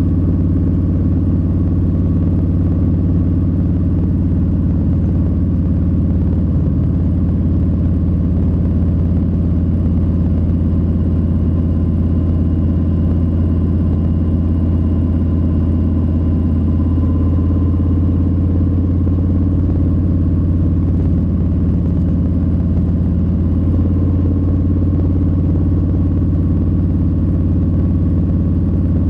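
Harley-Davidson Low Rider S's Milwaukee-Eight 117 V-twin running at a steady engine speed, a deep even drone with no revving or gear changes.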